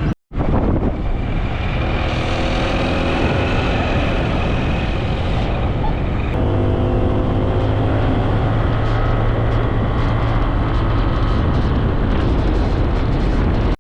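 Motor scooter engine running while riding, its pitch drifting gently with speed, under heavy wind noise on the microphone.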